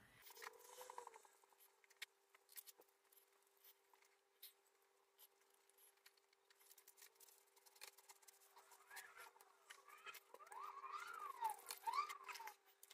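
Faint scratchy rubbing and scattered ticks of a cloth polishing a cured resin surface with polishing compound, with a few warbling squeaks near the end over a faint steady hum.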